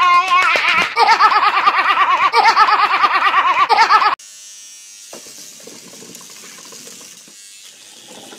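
A young girl laughing hysterically, a high-pitched rapid run of 'ha-ha' pulses, cut off suddenly about four seconds in; after that only faint, low room noise.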